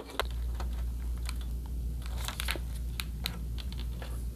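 Scattered light clicks, taps and plastic crinkling from hands handling a backlight tester's probe leads on a plastic diffuser sheet, over a steady low hum.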